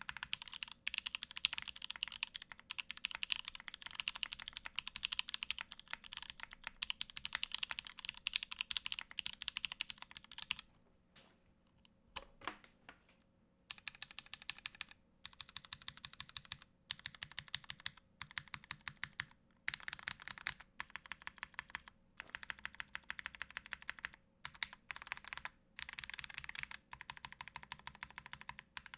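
Typing on a Merisi Works Dodici mechanical keyboard: top-mount aluminium plate, vintage Cherry MX Black linear switches, GMK doubleshot ABS keycaps. Fast runs of keystrokes, with a pause of about three seconds near the middle and shorter breaks later.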